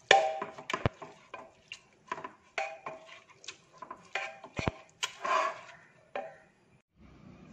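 A ladle mashing and stirring cooked split moong dal in a pressure cooker, knocking and scraping against the pot's sides and bottom in a run of irregular taps, some with a short metallic ring.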